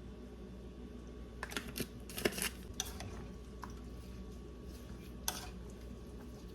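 Light clicks and clinks of kitchen utensils and containers against a pot, a quick cluster in the first half and a single click later, over a low steady hum.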